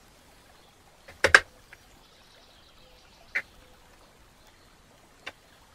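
Laser-cut MDF pieces knocking and clicking as they are pushed into their slots: a sharp double knock about a second in, then single fainter taps near the middle and near the end.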